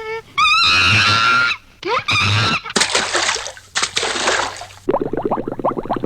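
Recorded tropical bird calls: a loud wavering squawk, then screeches and noisy bursts, then a fast rattling chatter near the end.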